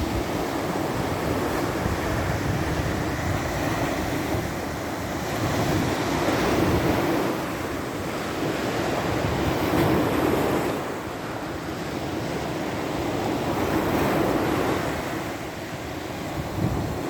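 Waves of the Sea of Azov breaking and washing on the shore, swelling louder every few seconds, with wind buffeting the microphone.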